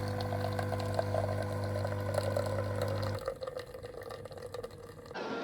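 Nescafé Dolce Gusto Genio S Plus capsule machine brewing: its pump hums steadily as liquid runs through, then cuts off about three seconds in, leaving a faint hiss.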